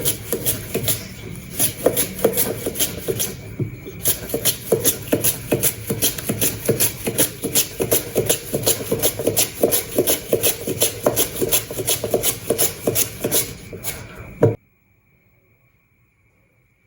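A raw potato rasped against a kitchen blade in quick, even strokes, about four a second. The strokes stop abruptly near the end, leaving near silence.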